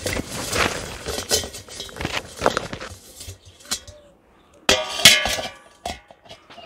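Carrot tops being cut and handled with a long knife, giving a series of crunching, rustling strokes of leafy stems. About five seconds in, metal knocks against the perforated metal bowl, which rings briefly: the loudest sound here.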